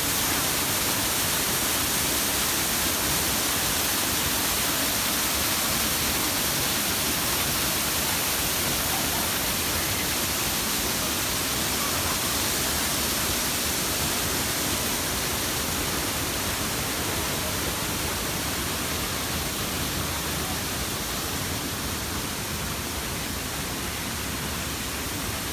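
Waterfall rushing steadily: a dense, even hiss of falling water.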